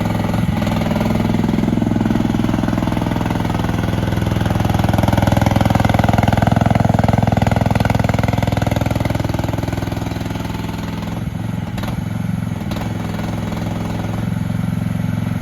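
Diggit EM15 mini excavator's engine running while it is operated; it loads up and gets louder for several seconds in the middle, then eases back to a steadier run.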